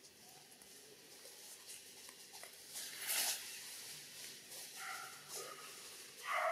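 Long-tailed macaque calls: short pitched calls, a faint one about five seconds in and a louder one near the end, with a brief rustle about three seconds in.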